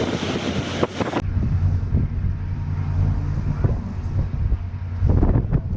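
A loud rushing hiss of wind cuts off suddenly about a second in. Then comes the steady low drone of a cruise ship's engines, with wind buffeting the microphone in gusts, heaviest near the end.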